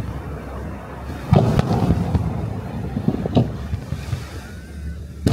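Aerial firework shells bursting: a loud boom about a second in and another past the middle, over a steady low rumble.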